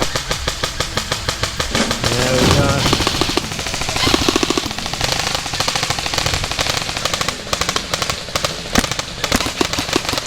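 Airsoft guns firing fast automatic strings of shots, a rapid even run of clicks that goes on almost without a break.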